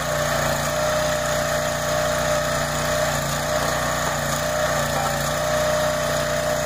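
Towable hydraulic log splitter's small gas engine running steadily at a constant speed, driving its hydraulic pump, with a steady hum.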